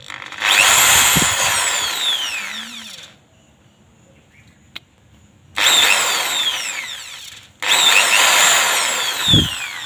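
Ingco 600 W corded impact drill running free with no load: three trigger pulls, each a sudden burst of motor whine that winds down in a falling whine as the trigger is let go.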